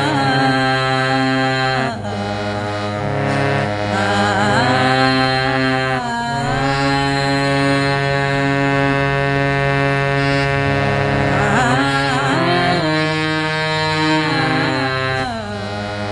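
Opening of a devotional bhajan: steady held chords with a melody line gliding over them, with short breaks in the phrase about two, six and fifteen seconds in.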